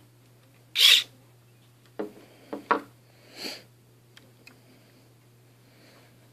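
A short electric whir from the small motor that works the model lowrider's suspension, lasting about a third of a second, about a second in. Between about two and three and a half seconds come a few light knocks and a fainter whir as a hand handles the model.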